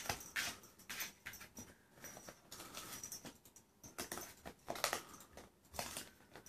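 Pomchi puppy chewing and tearing at a piece of cardboard: irregular crunching and crackling as its teeth work the card.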